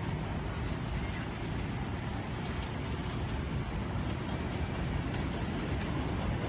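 Steady low rumble of city traffic and an approaching R179 subway train on the elevated line, still some way off, growing slightly louder near the end.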